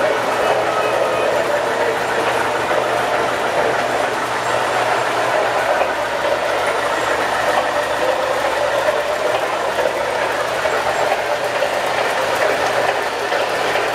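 MTH Premier O-gauge model steam locomotive and its cars running on three-rail track, giving a steady rolling rumble and whir with a constant low hum.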